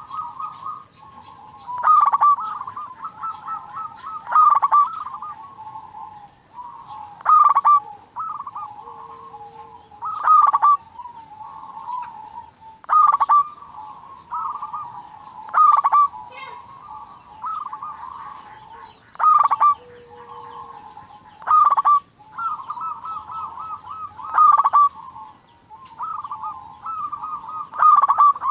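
Zebra doves (perkutut) cooing: a loud, stuttering coo phrase about every two and a half to three seconds, with softer coos in between.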